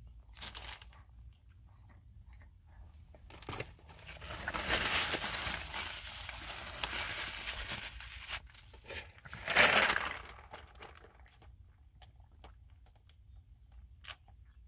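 Paper napkin rustling and crumpling in the hands, loudest from about four to eight seconds, with a short, louder crinkle near ten seconds and small scattered crackles after.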